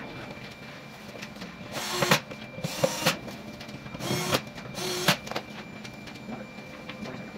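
Cordless drill running in four short bursts as it works into the dresser's MDF panel, each burst about half a second long.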